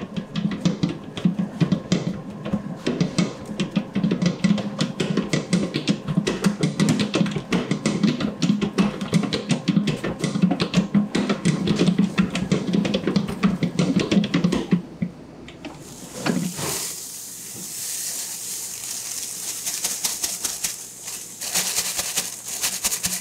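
Large stand mixer running, its hook beater churning a thick fibrous mock-meat dough with a fast clatter. About fifteen seconds in, this gives way to a steady high hiss over a faint low hum.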